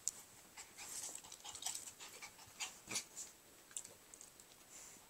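Dog panting in short, irregular breaths.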